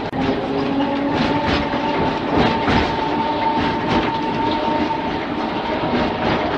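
Mumbles Railway tram running along the line, its wheels knocking irregularly over the rail joints under a steady high whine.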